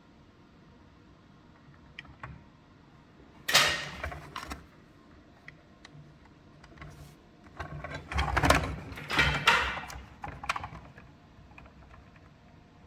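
Hands working on small parts: a few sharp clicks, then short bursts of scraping, rustling and knocking, loudest a little past the middle.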